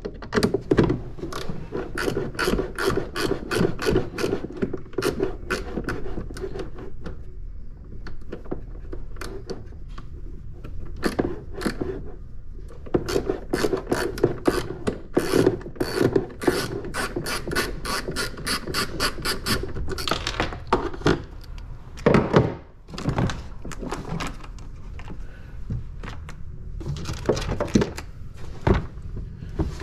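Socket ratchet on an extension clicking in long quick runs, about four clicks a second, as nuts are undone, with brief pauses between runs. Later come a few louder knocks and fewer clicks.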